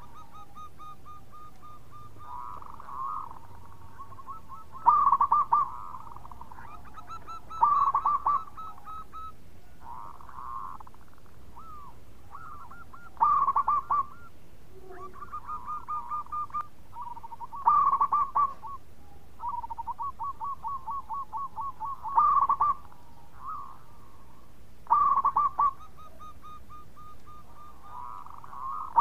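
Zebra dove (perkutut) singing: about seven loud bursts of rapid staccato cooing notes, with quieter trilled coos running between them.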